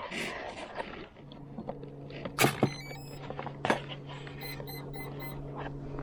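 Sharp handling clicks and knocks, with short strings of very high electronic beeps and a steady low hum that starts about a second in.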